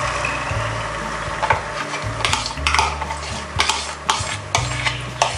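Beaten egg poured into hot oil in a nonstick pan, sizzling as it starts to fry, with scattered sharp crackles and pops.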